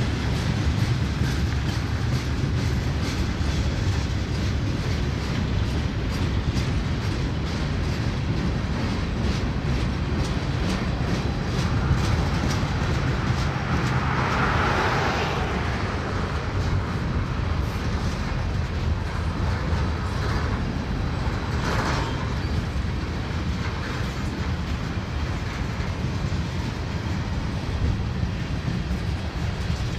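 Freight cars of a manifest train rolling past: tank cars, boxcars and flatcars, steel wheels clicking over the rail joints over a steady low rumble. A louder rush of noise swells about halfway through, and again briefly later.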